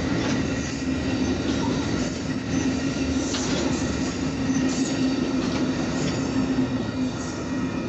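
Amtrak Superliner double-deck passenger cars rolling steadily past at speed: wheels on the rails make a continuous rumble and hum, with a few sharp clacks a little past halfway.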